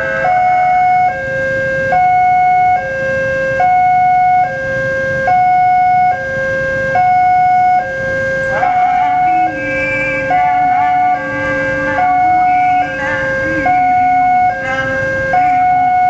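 Railway level-crossing warning alarm sounding while the barriers are down: an electronic two-tone signal that switches steadily between a lower and a higher note about every second.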